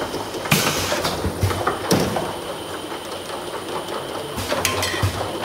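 Automatic bottle filling and sealing line running, a steady mechanical clatter with a faint high whine. Plastic bottles clack sharply against the conveyor and star wheel about half a second in, again at two seconds, and a few times near the end.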